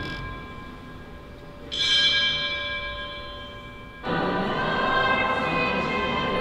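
Background music: sustained tones, a single bell-like chime struck about two seconds in and ringing away, then a choir-like swell of many voices entering about four seconds in.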